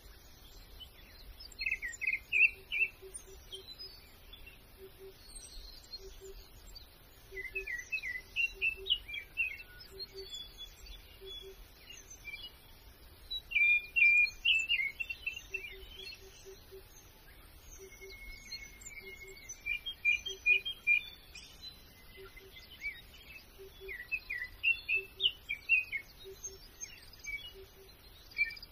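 Small songbirds chirping and twittering in short bursts of song every few seconds. A faint low note pulses repeatedly underneath.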